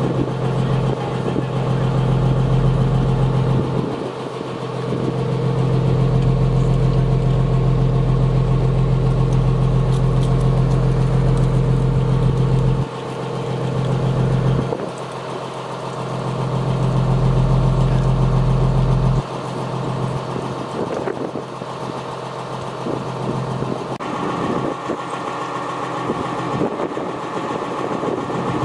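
A fire engine's warning horn sounding in three long, steady low-pitched blasts that each cut off abruptly, over the sound of the truck's engine running.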